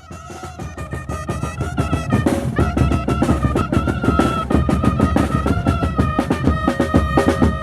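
Chirimía band playing: a wind instrument holds a high melody line over fast, dense snare and bass drum rolls. The music fades in over the first two seconds.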